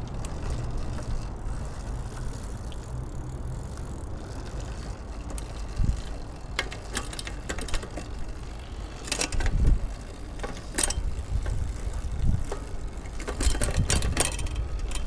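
Mechanical clicks and light knocks from hands-on work on a road bicycle, a few scattered and then a quick cluster near the end, over a steady low hum.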